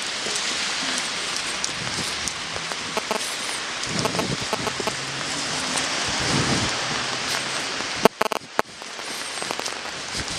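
Steady rain, an even hiss, with a few sharp knocks about eight seconds in.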